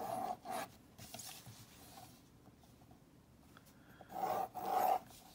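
Pencil ruling lines along a plastic ruler on drawing paper: short strokes at the start, then two more about four seconds in.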